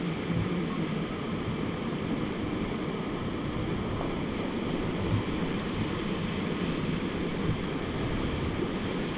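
Rushing river water during a whitewater raft ride, a steady churning hiss, with wind buffeting the microphone.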